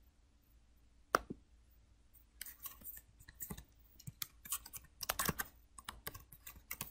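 One sharp click about a second in, then a run of computer keyboard keystrokes at an uneven pace: typing on a PC keyboard.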